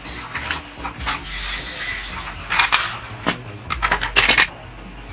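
Plastic toy tractor and trailer rolling across a hard floor: a low rolling rumble with a string of sharp plastic clicks and knocks, thickest about two and a half seconds in and again around four seconds.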